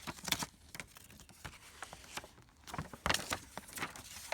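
Paper rustling with light clicks and taps as an instruction leaflet is taken out of a small box and unfolded.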